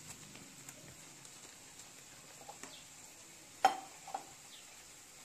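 Steel spoon stirring dry cornflour in a steel bowl, with faint scraping ticks and one sharp clink of spoon on bowl about three and a half seconds in, a lighter clink half a second later.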